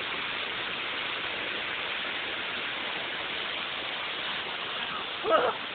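Steady rushing of a waterfall pouring into its pool. A person's voice calls out briefly near the end, louder than the water.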